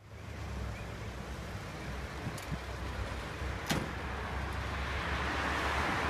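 Outdoor street ambience: a steady rushing noise over a low rumble, growing louder toward the end, with one sharp click a little over halfway through.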